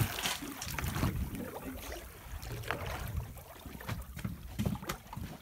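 Sea water slopping against the side of a small boat, with wind rumbling on the microphone and a few light knocks, louder and hissier in the first second.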